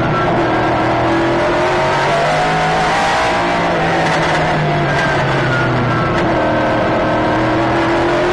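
Nissan GT-R GT1 race car's V8 engine at racing speed, heard from inside the cockpit. The engine note holds high, drops about six seconds in, then climbs again toward the end.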